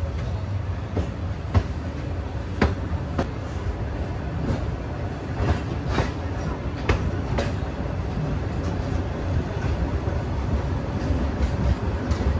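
Passenger train running along the track: a steady low rumble broken by sharp clacks of the wheels at uneven intervals.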